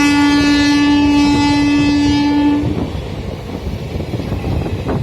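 WAP-4 electric locomotive's horn holding one long, low steady note that cuts off a little past halfway, followed by the rumble and clatter of the train running on.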